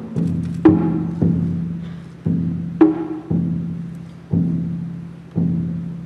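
Large barrel drums and gongs struck with mallets in a slow pattern, roughly one stroke a second, sometimes two close together. Each stroke rings and dies away over a steady low ringing tone.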